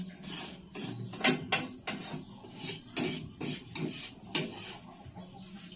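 Metal ladle scraping and knocking against a frying pan on a gas stove, stirring oil and breading mix into a gravy base: a dozen or so quick irregular strokes, about three a second, stopping about four and a half seconds in.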